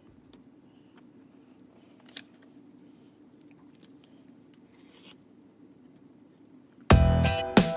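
Faint crafting handling sounds of washi tape and paper over a low room hum: a small click, a few light ticks and a brief rustle about five seconds in. Background music starts abruptly about seven seconds in.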